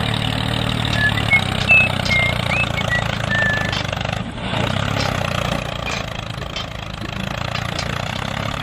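Tractor engine running steadily, a low even hum, with a few short high chirps between about one and three and a half seconds in.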